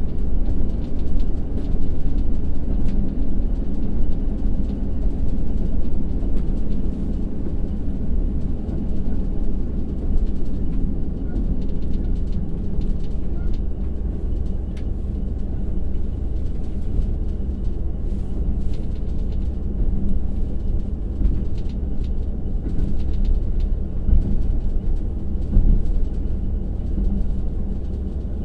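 Running noise inside a JR Hokkaido KiHa 182-500 diesel railcar, heard from a passenger seat: a steady low rumble of wheels on rail with the DML30HSJ direct-injection V12 engine off power as the train slows, with faint scattered clicks.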